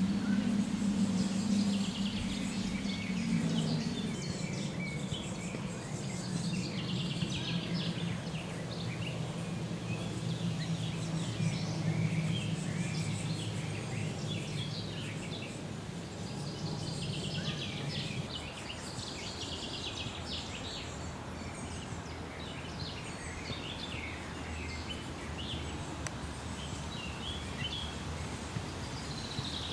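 Birds chirping and twittering in quick, varied high calls, over a low steady hum that fades out about two-thirds of the way through.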